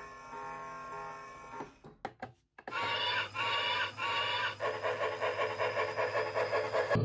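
Background music with held tones, cut off about two seconds in. Then the Lionel Hudson 700E lamp's built-in steam-locomotive sound effect starts: a whistle in three blasts, followed by rhythmic steam chuffing at about four beats a second.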